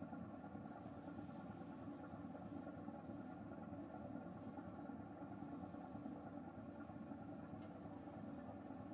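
Steady drone of a car ferry's engines under way, with wind noise from the unshielded camera microphone.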